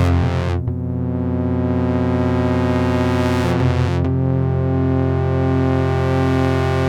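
Synthesizer playing sustained chords over a steady low drone, shifting to new notes about half a second in and again about two thirds of the way through. After the second change the middle notes pulse slowly, about twice a second.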